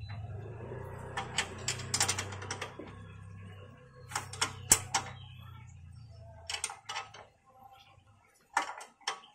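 Steel combination wrench clicking and clinking against the lower strut-to-knuckle bolt of the front suspension as the bolt is tightened, in several short bursts of rapid metallic clicks. A steady low hum runs underneath and fades out near the end.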